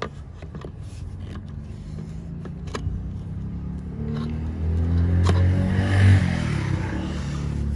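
A motor vehicle engine running nearby, getting louder about halfway through, with a few light clicks and knocks.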